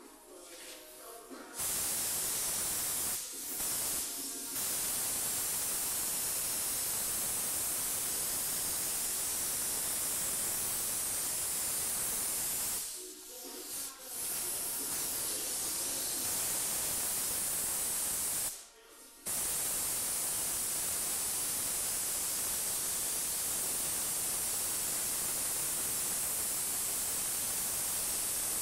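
Compressed-air gravity-feed paint spray gun hissing steadily as paint is sprayed onto a car body, cutting out briefly several times as the trigger is released between passes.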